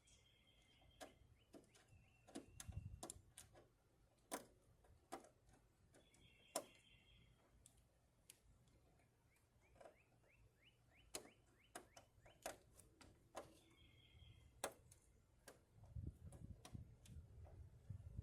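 Scattered clicks and taps of hand tools against metal parts, irregular and sparse, as a screwdriver is worked at a fastener.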